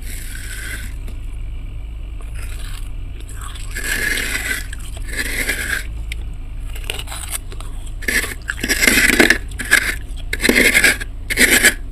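Freezer frost being scraped in repeated scraping strokes, coming closer together and louder in the second half, over a steady low hum.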